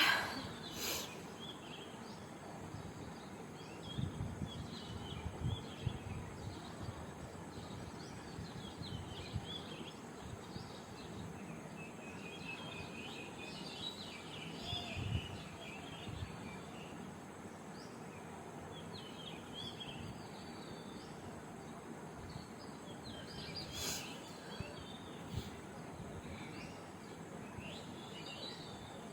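Quiet background with a steady hiss and scattered faint high chirping, like birds outdoors. A brief sharp sound right at the start, a few soft low thumps a few seconds in, and another short sharp sound near the end.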